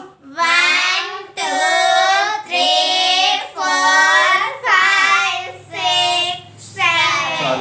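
A group of children chanting in unison, about one long, drawn-out sing-song syllable a second.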